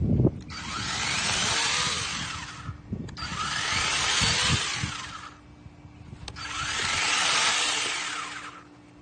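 Wood being sawn in three long rasping strokes, each about two seconds, separated by short pauses.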